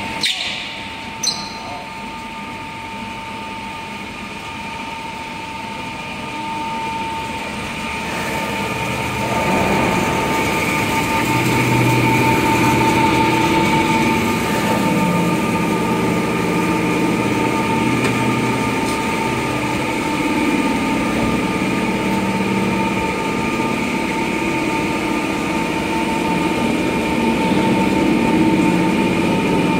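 Factory machinery of a fiber cement board production line running, with a steady high whine throughout. A few sharp clicks come right at the start, and heavier, deeper machine noise joins about nine seconds in and carries on.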